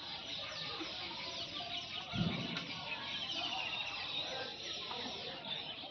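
Many birds chirping and calling over one another in a dense, high-pitched chorus, with a dull thump about two seconds in.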